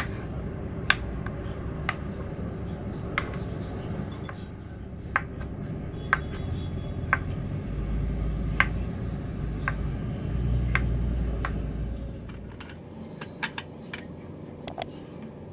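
Knife cutting papaya into cubes on a plastic cutting board: a sharp tap of the blade on the board about once a second, over a steady low hum. Near the end, a few lighter clicks as the pieces are tipped off the board into a ceramic bowl.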